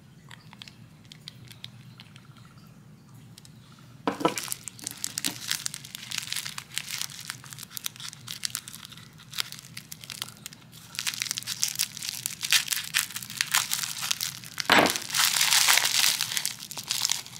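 Plastic bubble wrap being snipped with scissors and crinkled as it is unwrapped from a small bottle. After a few seconds of faint clicks, the crinkling starts about four seconds in and grows louder toward the end.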